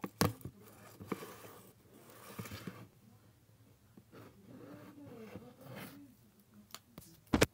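A phone being handled and moved about: rustling and scraping against fabric and objects, with scattered clicks and a sharp knock near the end.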